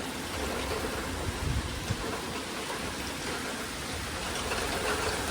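Rain falling steadily as a severe thunderstorm moves in.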